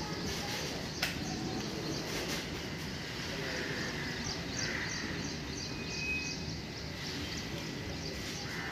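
Freight train of flat wagons rolling slowly past: a steady rumble and rattle of wheels on the rails. In the second half there is a run of short high chirps, several a second.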